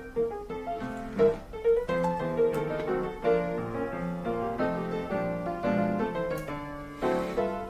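Background piano music, a run of notes struck one after another.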